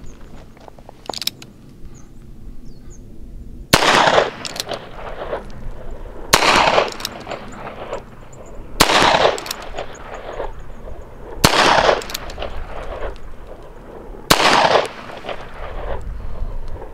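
Five shots from a copy of an 1858 Remington cap-and-ball revolver converted with a Howell Arms cylinder to fire .45 ACP, spaced about two and a half to three seconds apart. Each shot trails off over about a second. The loads are 230-grain lead-bullet handloads.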